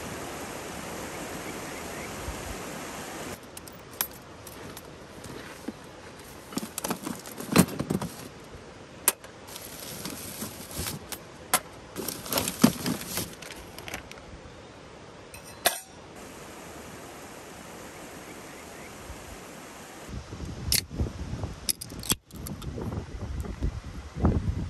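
Steady rush of flowing stream water, cut off about three seconds in. Then come scattered light metallic clinks and knocks of camping gear being handled, and low rumbling bumps with more clicks near the end.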